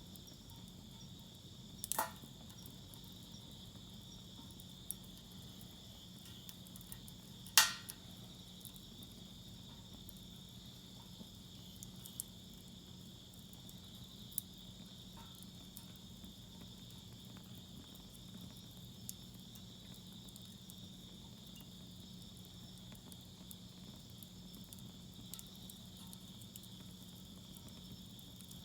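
Wood fire burning in a fire pit, crackling with faint scattered ticks and two sharp pops, about two seconds in and a louder one about seven and a half seconds in. Crickets chirp steadily behind it.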